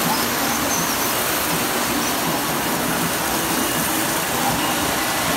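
Model trains running on a toy railroad layout, a steady whirring of small electric motors and wheels on track.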